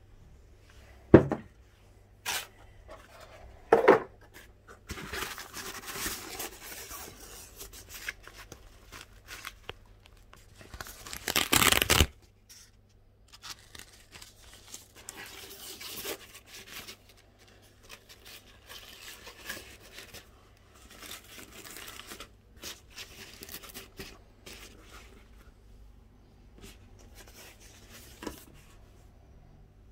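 Packaging being opened by hand during an unboxing. A few sharp knocks come in the first four seconds, then tearing, loudest for about a second near the middle, followed by scattered quieter handling noises.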